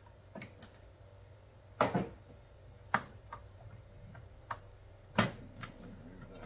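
Scattered clicks and knocks of a hard plastic toolbox and its parts being handled, about half a dozen in all. The loudest is a knock with a short ring about two seconds in, and another comes just past five seconds.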